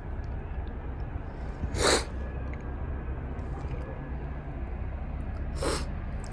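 Steady low rumble of outdoor town background noise, with two short, sharp noisy bursts: one about two seconds in and one near the end.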